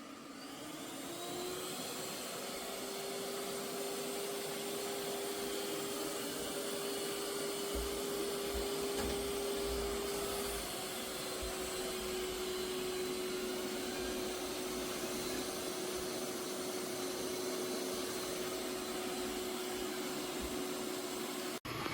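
eufy X10 Pro Omni robot vacuum's suction motor spinning up, its whine rising over the first second or so and then running steadily with a constant hiss of airflow.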